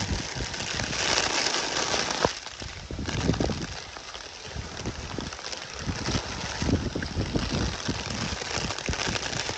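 Heavy tropical-storm rain pouring steadily, with wind gusting in an irregular low rumble on the microphone and a single sharp knock a little over two seconds in.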